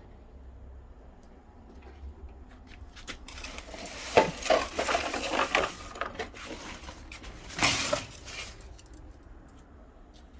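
Dishes being handled, clinking and clattering irregularly from about three seconds in, with the loudest clatter near eight seconds.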